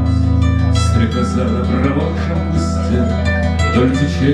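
Solo acoustic guitar played live: an instrumental passage of plucked notes over sustained bass notes, the bass moving to a new note about a second in.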